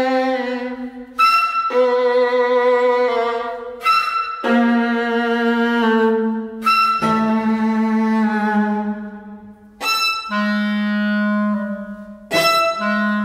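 Instrumental background music: held chords over a low note, a new chord starting sharply about every three seconds and then slowly fading.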